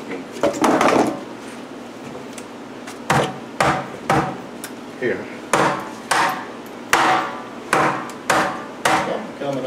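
Repeated heavy blows of a hand tool on an old wooden whiskey barrel as its top is knocked and pried loose. A short scraping clatter comes about half a second in, then from about three seconds a steady run of knocks, one or two a second, each ringing briefly.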